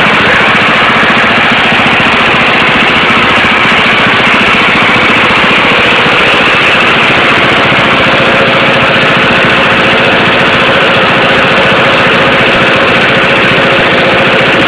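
Diesel engine running loud and steady at a constant speed, with a fast, even clatter.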